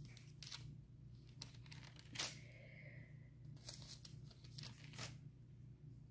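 Faint rustling with scattered soft clicks over a steady low room hum, one click louder about two seconds in.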